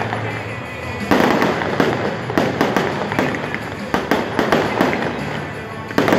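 Fireworks show: a loud burst about a second in, followed by a run of rapid crackling bangs, then another burst near the end.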